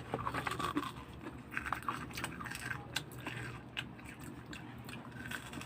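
Close-up crunching and chewing of crispy chicharon, with a scatter of short, sharp crackles.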